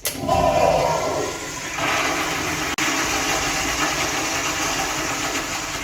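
Toilet flushing: a sudden loud rush of water, strongest in the first second, then a steady rushing hiss that carries on for several seconds.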